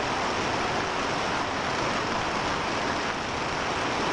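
Heavy rain mixed with falling hailstones, pelting down as a steady, dense hiss.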